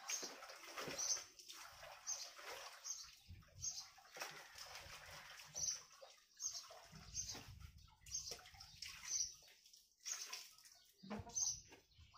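Garden trowel scooping and scraping potting soil into a shallow plate, with the crumbly rattle of soil dropping and a few louder scrapes. A small bird chirps a short high note over and over in the background, about once a second.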